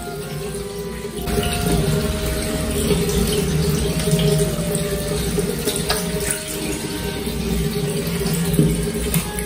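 Tap water running into a sink, a steady rushing splash that gets louder about a second in.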